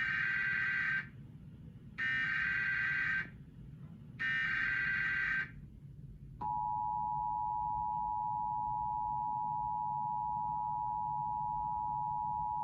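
Emergency Alert System SAME header: three short warbling data bursts of about a second each, spaced about a second apart. About six seconds in, the EAS two-tone attention signal starts (853 and 960 Hz sounded together) and holds steady, announcing the severe thunderstorm warning that follows.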